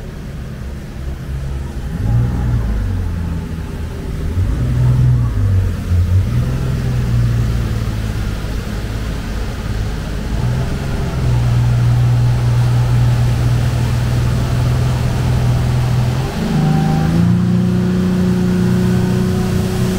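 Passenger speedboat's engine running as the boat pulls away from the dock and gets under way, heard from inside the covered cabin. It grows louder a couple of seconds in, and its tone steps up in pitch about three quarters of the way through as the boat speeds up.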